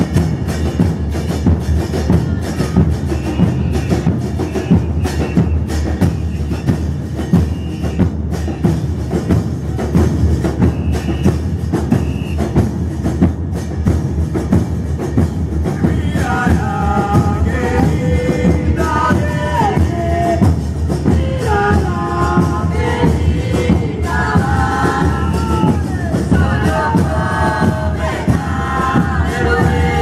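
A Buenos Aires murga drum line of bass drums with cymbals (bombos con platillo) plays a steady, driving carnival beat. Group singing comes in over the drums about halfway through.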